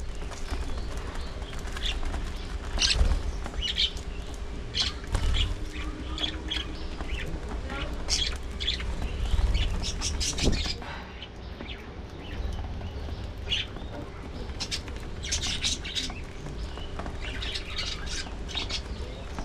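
A flock of budgerigars chirping and chattering, many short calls coming thick and irregular.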